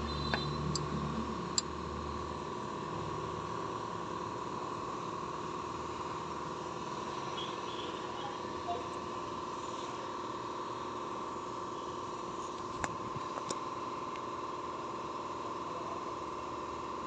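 Hyundai Starex van idling, with a steady hum from the engine and power steering running, on a test of a newly replaced power steering pump. A heavier low rumble fades out in the first two seconds, and a few light clicks sound over the hum.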